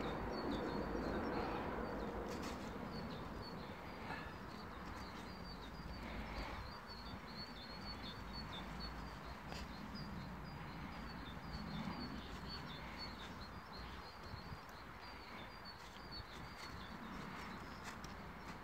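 A river carrying drift ice and slush flows with a steady, even hiss. A run of short high-pitched chirps goes on over it throughout.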